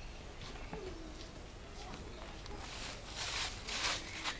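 A few short scraping, rustling strokes about three to four seconds in, over a quiet outdoor background with faint distant voices.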